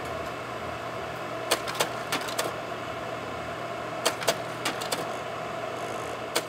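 A small machine running with a steady hum, with sharp clicks coming in small irregular clusters over it.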